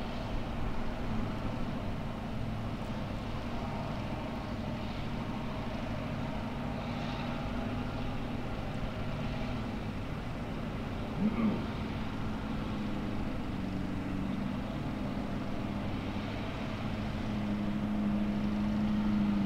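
Formula Offroad buggy's engine running steadily as the car wades through a water pit, growing louder near the end. A brief rising sound stands out about halfway through.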